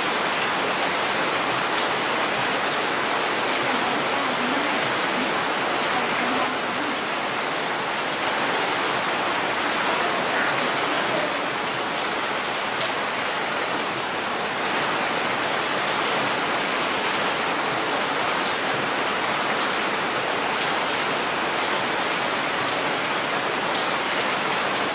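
Steady rain falling on leafy plants, an even hiss that holds at the same level throughout.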